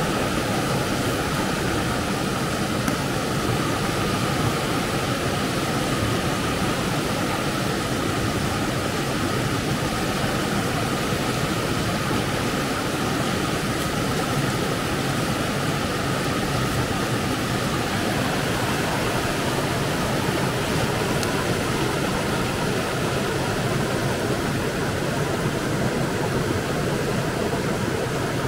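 A fast, rocky river rushing over stones, a steady, even noise.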